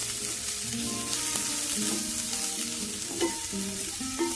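Chopped onions sizzling in hot oil in a nonstick pan, stirred and scraped with a wooden spoon, with light clicks of the spoon against the pan. Soft background music plays underneath.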